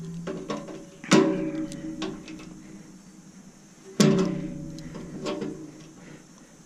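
Guitar music: slow strummed chords about every three seconds, each left ringing out, with lighter strums in between.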